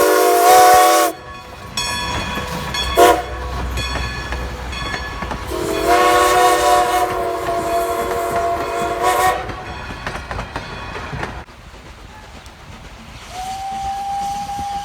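Steam locomotive whistle sounding a chord of several tones: a blast that cuts off about a second in, a short toot near three seconds, and a longer blast of about four seconds. Near the end a different, single-note whistle starts and holds steady.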